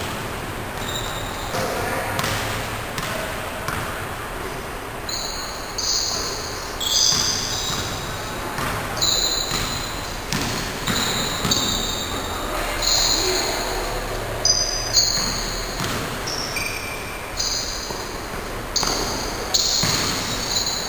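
Basketball game in a large gym hall: the ball bounces repeatedly on the court and sneakers squeak in short high-pitched chirps as players run and cut, with the sounds echoing around the hall.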